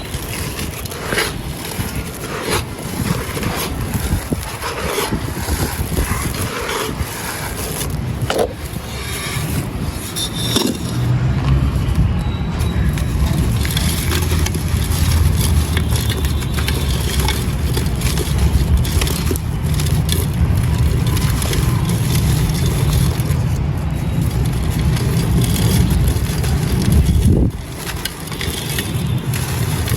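Dry gritty sand and clay lumps being crushed and crumbled, a dense run of crunches and gritty scrapes. From about a third of the way in, a steady low rumble runs under the crumbling and drops away sharply near the end.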